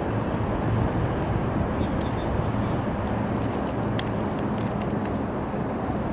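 Union Pearson Express diesel multiple-unit train pulling away, heard as a steady low engine drone and rumble over the yard's background noise, with a few faint clicks about four seconds in.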